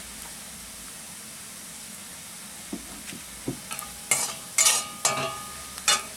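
Chopped onion, ginger and garlic sizzling steadily in oil in an aluminium kadai. About four seconds in, a metal spatula scrapes and clanks against the pan several times as the turmeric is stirred through, and the pan rings briefly with each stroke.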